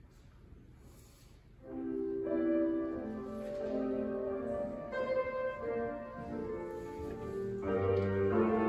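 Piano music starts about two seconds in with sustained chords: the opening of a hymn's accompaniment.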